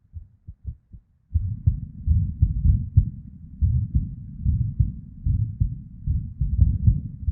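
A woman's irregular heartbeat: low, unevenly spaced thumps with a whooshing blood-flow murmur between them. It is faint and sparse for about the first second, then much louder.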